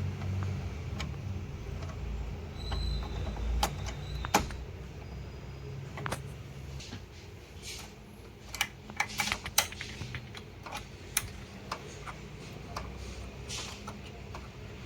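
Irregular sharp clicks and light knocks from printer parts being handled during repair, over a low steady hum. The clicks come more thickly in the second half.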